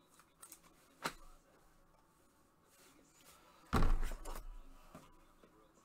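Trading cards being handled at a desk: a sharp click about a second in, then a heavier thump with a brief rustle just before four seconds.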